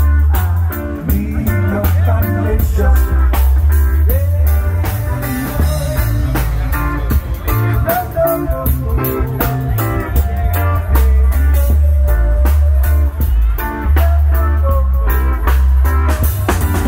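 Live band playing electric guitar over a drum kit, with a strong bass line underneath.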